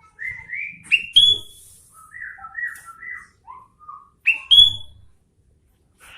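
Sooty-headed bulbul (kutilang) singing: a run of short, clear whistled notes rising and falling in pitch. The two loudest notes swoop upward, about a second in and again about four and a half seconds in.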